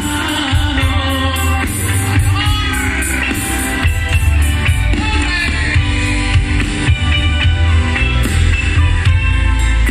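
Live grupero band playing loud through a concert PA, with a heavy bass and drum beat under electric guitar, saxophone and percussion lines.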